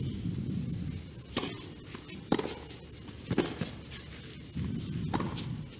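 Tennis ball struck by rackets in a rally: a serve and three more hits, roughly a second apart, each a sharp pop over low background noise.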